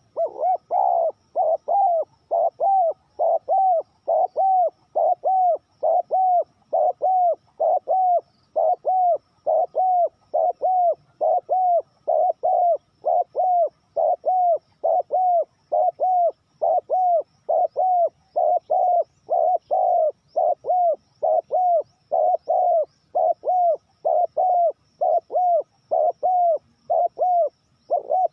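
Spotted dove cooing: one short arched coo repeated over and over at an even pace, about two a second.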